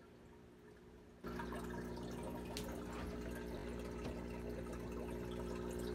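Aquarium air pump and bubbler running: a steady electric hum under a fine crackle of bubbles, cutting in abruptly about a second in.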